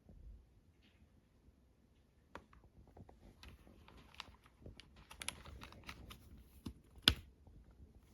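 Typing on an RK Royal Kludge M75 mechanical keyboard with red linear switches. A few scattered keystrokes come first, then a quicker run of key clacks from about two and a half seconds in, with one sharper, louder key hit near the end.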